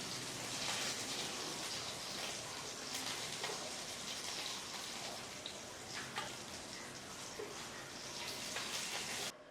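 Hot oil sizzling and crackling in a frying pan, a steady hiss dotted with small pops, cutting off suddenly near the end.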